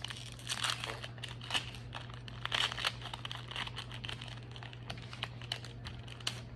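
A baseball card pack wrapper crinkling and tearing as it is opened and handled, in a run of quick rustles and small clicks, over a steady low hum.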